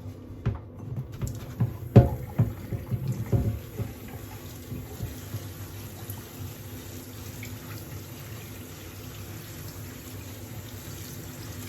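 Tap water running steadily through a tumble dryer's condenser cassette as it is rinsed out to clear grime and lint from its fins. In the first few seconds the cassette knocks several times as it is handled, loudest about two seconds in.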